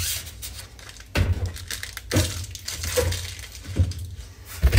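Plastic bags and paper packaging rustling and crinkling in the hands as small accessories are handled, with a few soft knocks on the table about once a second.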